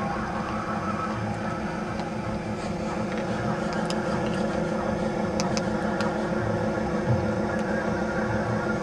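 A steady mechanical hum, with a few faint sharp clicks around the middle.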